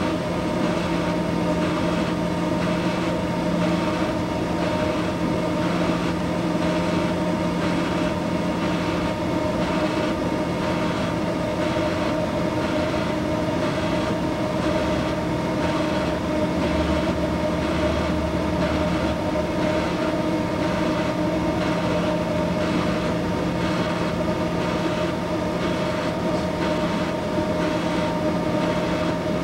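Orbital welding system running through an automatic weld: a steady mechanical hum and hiss from the power supply and the enclosed weld head, with several constant tones.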